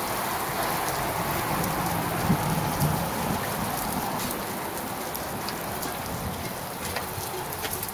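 Heavy rain falling, a steady hiss with scattered sharp clicks of drops landing close by.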